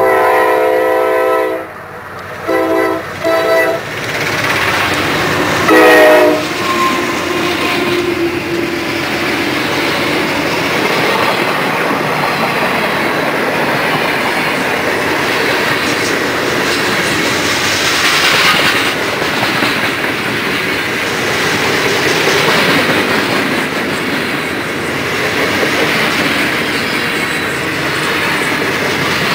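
CSX diesel freight locomotive's air horn sounding one long blast, two short ones, then a louder short blast about six seconds in. Then the train rolls past with a steady rumble and the clickety-clack of freight car wheels, boxcars and covered hoppers, over the rail joints.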